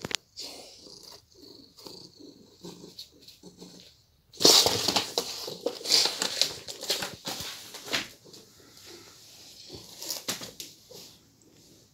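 A thin cardboard box scraping and rustling on a wooden floor as a cat with its head inside it shoves it about. It starts suddenly and loud about four seconds in and lasts about four seconds, with a few shorter scrapes near the end.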